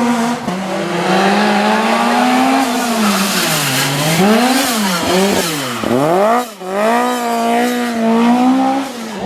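Rally car engine driven hard on a stage. It holds high revs, then the pitch dips and rises several times as the driver lifts and blips through downshifts. About two-thirds of the way in it drops sharply and climbs again as the car accelerates away.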